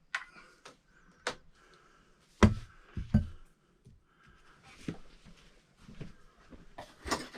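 Scattered knocks and clicks of tools and parts being handled during outlet installation, with two louder thumps about two and a half and three seconds in.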